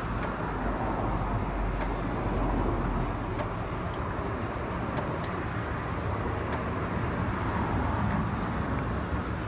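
Steady mechanical running noise from the suction pump's engine working the grease-trap hose, an even low rumble with a few faint clicks.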